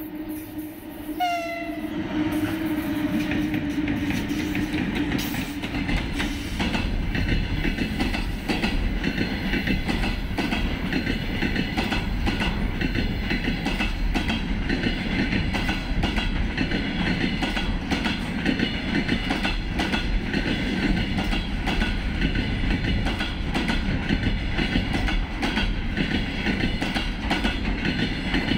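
VL10U electric freight locomotive passing with a steady hum that drops slightly in pitch, and a short horn blast about a second in. Then the container wagons roll by with a steady rumble and a continuous clickety-clack of wheels over rail joints.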